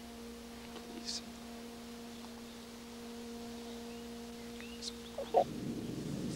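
A faint, steady hum, one held tone with overtones, broken twice by faint high chirps. It stops a little past five seconds in, and a louder rushing noise begins to swell.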